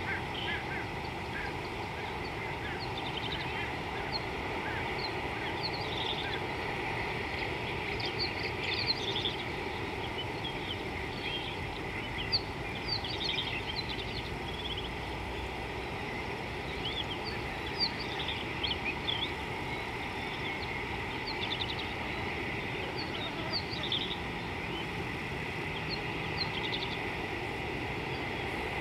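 Small birds chirping in many short, high calls scattered through, over a steady background hiss.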